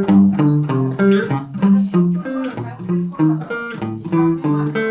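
Van Zandt Telecaster electric guitar through a Roland JC-120 amp, played solo: a run of plucked single notes, a few a second, with low bass notes sounding under the higher melody.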